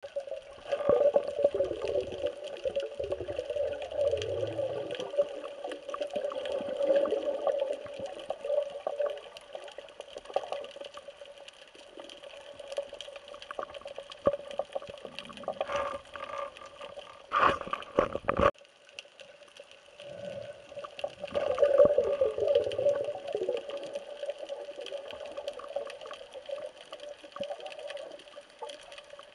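Water rushing and bubbling around an underwater camera as a diver swims, over a steady hum. The water noise swells in surges near the start and about two-thirds through, with a few short, sharp bursts a little past halfway.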